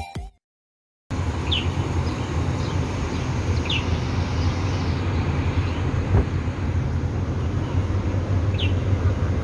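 Intro music cuts off, then after a moment of silence a steady low rumble of city traffic sets in, with three short bird chirps spread through it.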